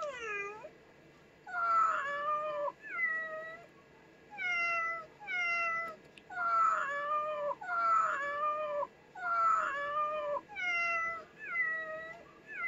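Recorded cat meows from the Neko98 desktop-pet program, played by a laptop over and over in quick succession, each meow falling in pitch.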